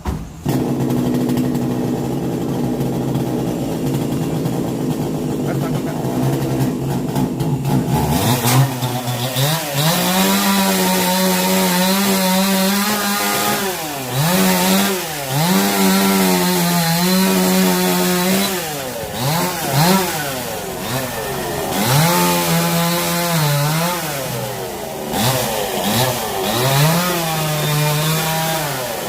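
A chainsaw idling steadily for about eight seconds, then run at high speed, its pitch dropping and recovering again and again.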